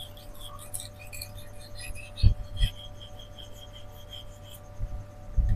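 Victorinox butcher knife's steel blade stroked across a Shapton Rockstar 4000-grit whetstone in finishing passes, a faint light scraping, with a dull knock a little over two seconds in.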